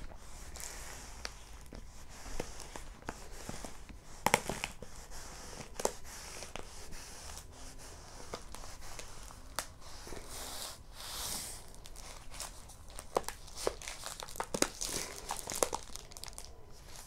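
Diamond painting canvas and its plastic cover film crinkling and crackling as it is rolled up and handled, with many scattered sharp clicks and pops.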